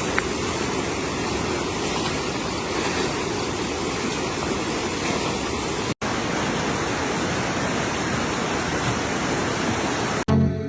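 Flash-flood water rushing past in a steady, loud torrent, broken by a split-second gap about six seconds in.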